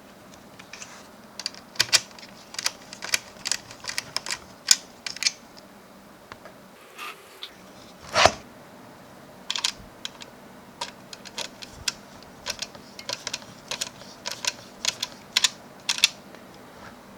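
Irregular small clicks and taps of computer parts and hardware being handled and fitted together, with one louder knock about eight seconds in.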